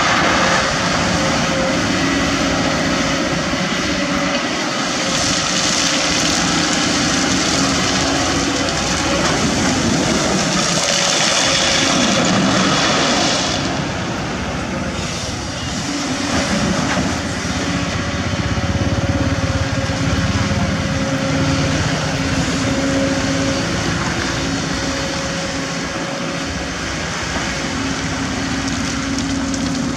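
Kobelco SK200 hydraulic excavator's diesel engine and hydraulics running continuously, the engine note shifting up and down as it digs and swings. A louder hissing rush rides over it through the first half and drops away about thirteen seconds in.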